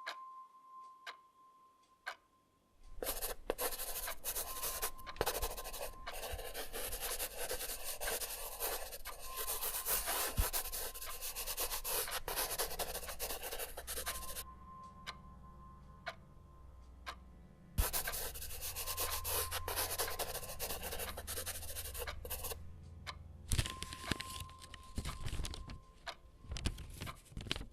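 A rough rubbing noise in long stretches: one of about ten seconds starting a few seconds in, a pause of a few seconds, another of about five seconds, then shorter bursts near the end.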